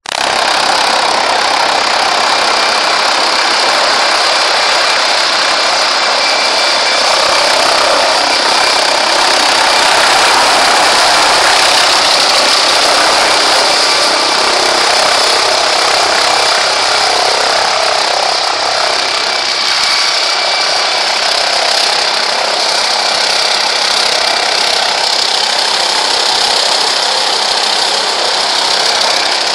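Helicopter flying low and coming in to land close by, its turbine and rotor noise loud and steady throughout.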